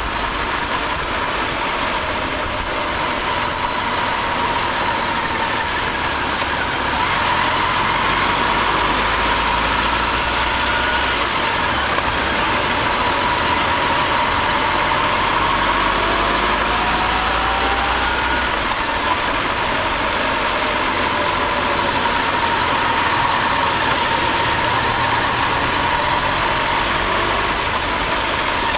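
Honda CB1300 Super Bol d'Or's inline-four engine running while the bike is ridden, its pitch rising and falling faintly with the throttle, under a steady rushing noise.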